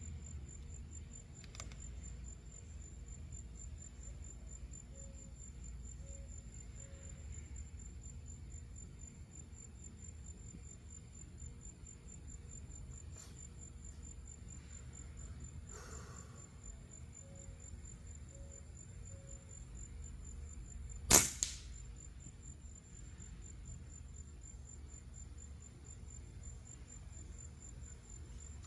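A single sharp rifle shot about two-thirds of the way through, over insects trilling steadily at a high pitch.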